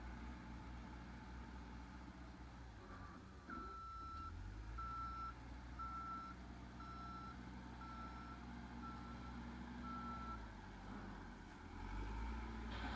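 Backhoe loader's diesel engine running, with its reversing alarm beeping seven times, about once a second, while the machine backs up; the engine note shifts as it starts and stops reversing.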